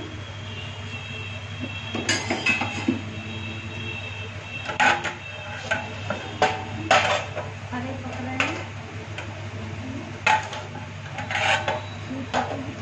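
Stainless-steel lids and a ladle clanking against steel pots on a gas stove: about ten sharp metal knocks, some with a brief ring, over a steady low hum.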